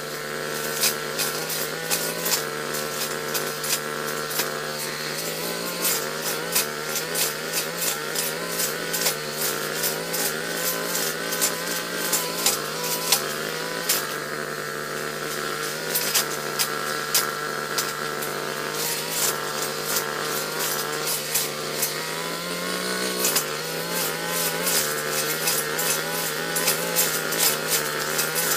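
Backpack brush cutter's small engine running steadily at working speed while its cutting head slashes through undergrowth, with many sharp ticks over the engine note. The engine briefly revs up once late on.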